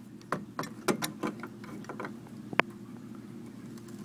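A string of small sharp clicks and clatters of tools and hardware being handled, thinning out after about two and a half seconds, over a steady low hum.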